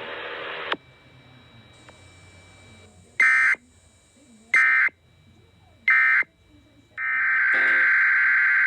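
Three short bursts of Emergency Alert System SAME digital data tone, about 1.3 seconds apart: the end-of-message signal closing a NOAA Weather Radio alert. About seven seconds in, a longer continuous burst of the same data tone starts.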